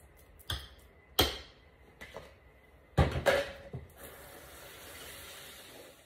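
Kitchen utensils knocking and clattering against a pan and the countertop, four or five separate clanks, then a steady faint hiss for the last couple of seconds.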